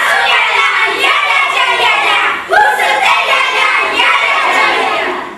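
Young female voices singing together, loud and high-pitched, with a short break about two and a half seconds in.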